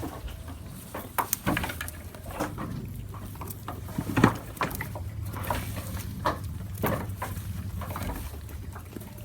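Goat chewing crunchy food: irregular crisp crunches and clicks, the loudest about four seconds in, over a low steady hum.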